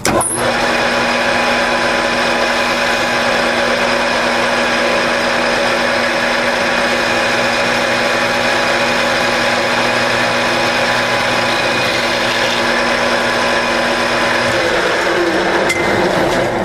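Grizzly G4003G geared-head metal lathe switched on and running steadily, with a constant gear whine, while a carbide insert tool takes a light 0.004-inch turning pass on the bolt's shank. It shuts off at the very end.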